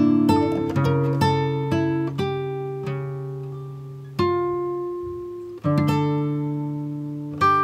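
Background music: acoustic guitar plucking notes and strumming chords that ring out.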